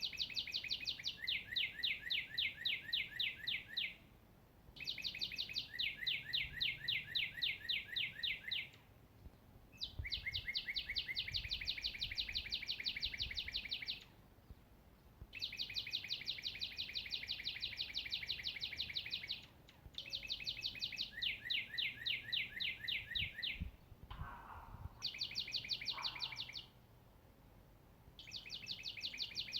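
A songbird singing the same rapid trill over and over: each trill is a fast run of quick downward-sweeping notes lasting three to four seconds, with a short pause before the next, about seven times.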